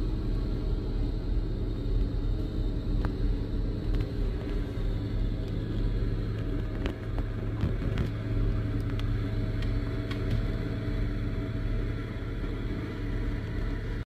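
Diesel engine of a Cat wheel loader running with a steady low drone as the machine clears snow from a street.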